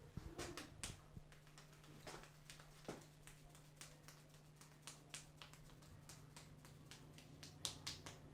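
A barber's hands and fingers working over the head and hair during a head massage: light, irregular clicks and taps, with a louder pair of clicks near the end.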